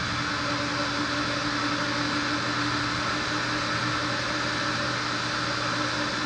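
XpetPee rug-washing machine running steadily: a steady hum under an even rushing hiss.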